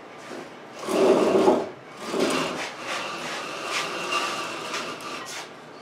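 Rubbing and scraping as a car body hanging from an engine hoist is pushed and turned by hand over a wooden stand. The loudest scrape comes about a second in and a shorter one follows, then quieter rubbing.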